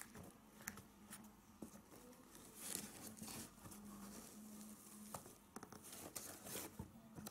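Faint rustling and light scattered ticks of a hand handling a Nike Cortez sneaker's laces and insole, close to near silence.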